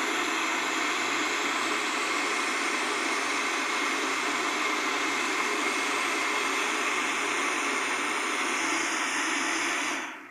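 Countertop blender running steadily, blending a cornmeal cake batter, then switched off about ten seconds in, the motor running down quickly.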